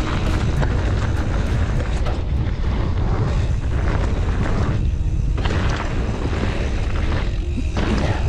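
Wind buffeting the camera microphone with a deep, steady rumble, over the hiss and crunch of knobby mountain bike tyres rolling fast down a dry, rocky dirt trail.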